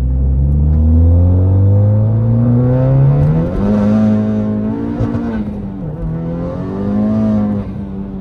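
Tuned Honda Civic Type R (FK8) turbocharged 2.0-litre four-cylinder under hard acceleration, heard from inside the cabin. Its pitch climbs steadily for about three and a half seconds, then holds high and wavers with two brief dips, rises once more and falls away near the end.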